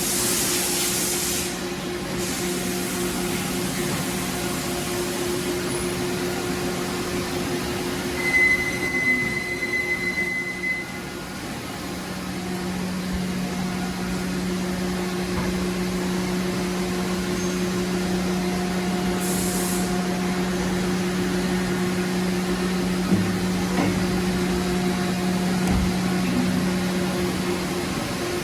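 Doosan Lynx 2100LB CNC lathe running with a steady machine hum. A high whine holds for about two seconds around a third of the way in, and there are short bursts of hiss at the start and about two-thirds through.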